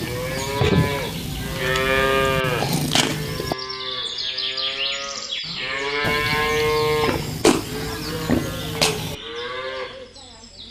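Cows mooing: two long, drawn-out moos, about two and seven seconds in, with shorter calls around them.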